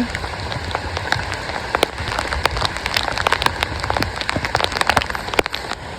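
Heavy rain pouring down: a steady hiss with many sharp, close drop hits throughout.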